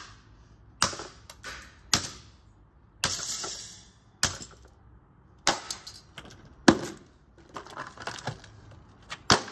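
A vintage GEC desk fan being smashed: about six hard blows a second or so apart, each a sharp crack with plastic and metal clattering after it, and a rough scraping crunch lasting about a second around three seconds in.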